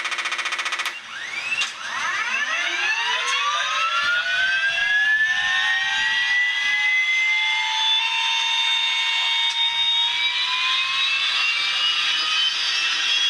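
TBS Mini RC sound module playing a simulated Airwolf helicopter turbine start-up: a short rapid buzzing at first, then several whines that rise in pitch and level off into a steady high turbine whine.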